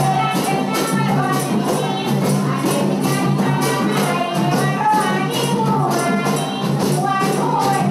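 Dance music: a melodic line, likely a singing voice, over a steady, even beat of sharp percussion strikes.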